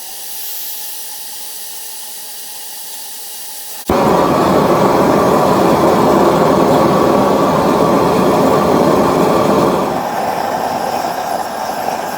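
Propane gas forge: a steady hiss of gas, then the burner lights with a sudden loud onset about four seconds in and keeps running steadily, easing slightly near the end.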